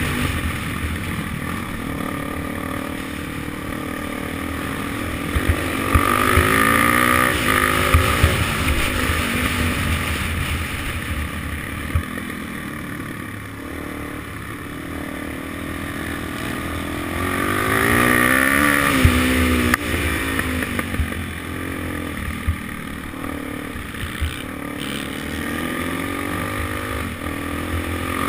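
Suzuki DRZ400SM's single-cylinder four-stroke engine under way, revs rising and falling as the rider accelerates and eases off, with two long climbs in pitch about six and eighteen seconds in.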